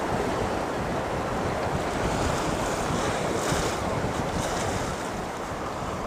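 Wind buffeting the microphone over the rush of sea surf on the shore: a steady outdoor noise with no distinct events.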